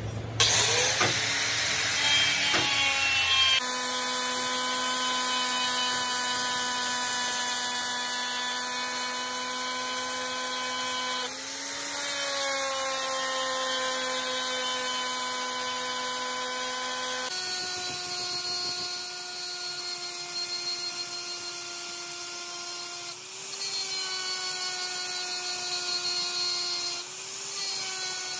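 Electric angle grinder running under load, grinding down weld built up on a truck gear's repaired teeth. A steady motor whine that sags briefly in pitch when the disc is pressed into the metal, and steps up to a higher pitch a little past halfway.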